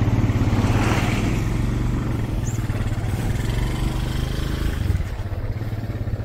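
Small motorcycle engine running steadily while riding along, heard from the back seat.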